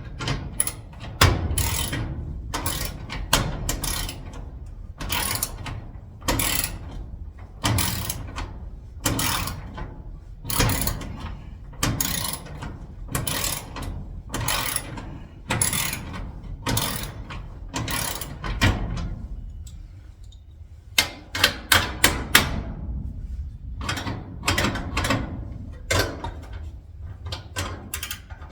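Ratcheting screwdriver clicking on its back-strokes as a screw is turned in, a little more than one stroke a second. About two-thirds of the way through it pauses, then comes back as quicker, shorter clicks.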